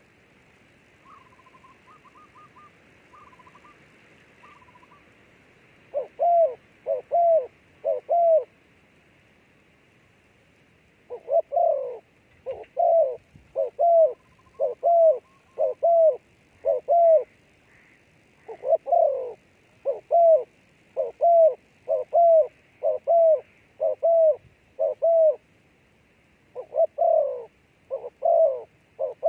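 A dove cooing in a long run of short, arched notes: a few about six seconds in, then steadily from about eleven seconds on. A faint higher trilling call comes near the start, over a steady faint high hiss.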